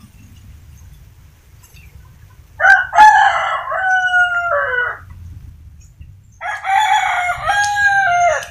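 A rooster crowing twice, each crow about two seconds long and stepping down in pitch near its end.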